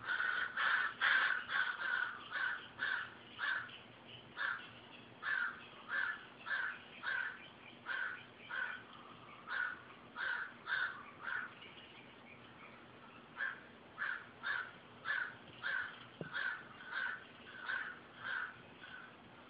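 Crows cawing over and over in a steady string of short harsh calls, about two a second, from several birds: "going crazy". The calls overlap and are loudest in the first couple of seconds, then pause briefly about halfway through before picking up again.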